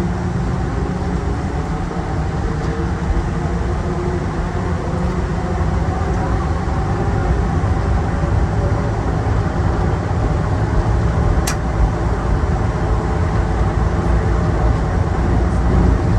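Airport people-mover train running at speed through a tunnel, heard from inside the car: a steady low rumble with a steady motor hum over it. A single sharp click about eleven seconds in.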